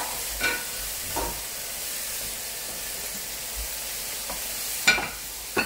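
Bean sprouts sizzling in a hot frying pan over a gas flame, steady throughout, with a few short clacks of a wooden spatula as they are stirred.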